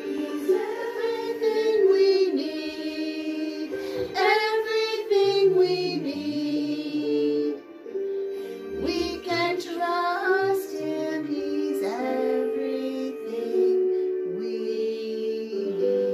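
A children's worship song sung over a sustained keyboard-like accompaniment, the sung melody rising and falling above held chords.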